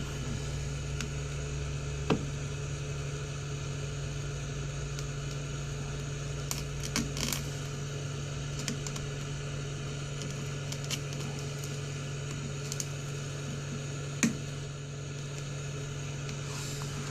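Steady hum of a heat gun running, with scattered small sharp clicks and cracks as a pry tool works under the shattering phone screen glass.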